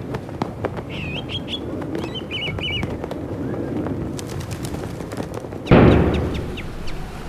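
Small birds chirping in short twittering phrases over a steady outdoor background. A single cannon shot booms about six seconds in and dies away over a second or so.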